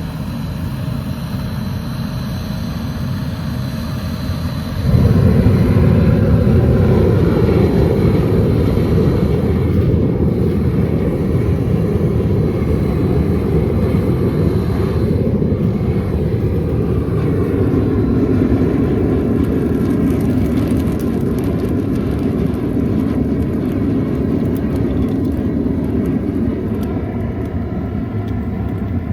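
Diesel-fired crucible furnace burning, a steady low rushing noise that gets suddenly louder about five seconds in and stays so.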